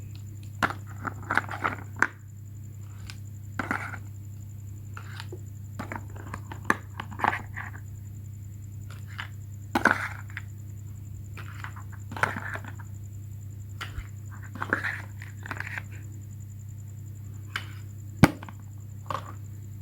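Scattered clicks, knocks and brief scrapes, irregularly spaced, over a steady low hum and a faint high-pitched tone.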